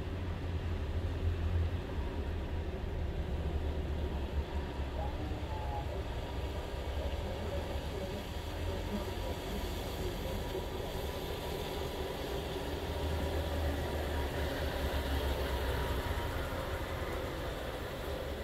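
Steady low rumble of vehicle engines over a haze of rain noise, swelling in the last few seconds as a diesel semi-truck comes close.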